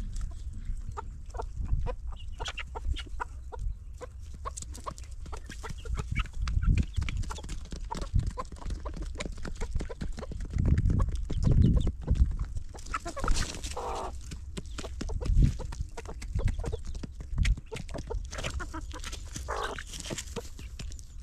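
Chickens clucking, with a few short, higher calls now and then, over a low rumbling noise that swells at times.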